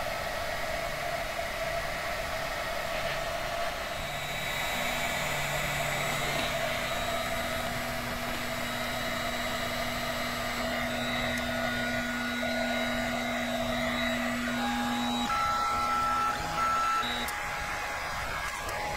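Enclosed 3D printer running: its fans hum steadily while the stepper motors whine in steady tones as the build plate is driven up toward the nozzle at the start of a print.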